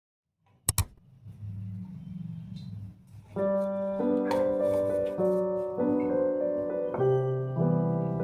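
Soft background piano music. Two quick sharp clicks sound just under a second in, then a quiet passage, and the piano becomes fuller from about three and a half seconds.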